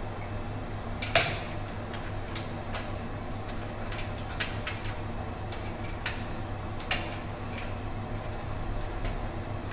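Scattered light metal clinks and taps as stainless-steel fittings on the still's lid are handled, the sharpest about a second in, over a steady low hum.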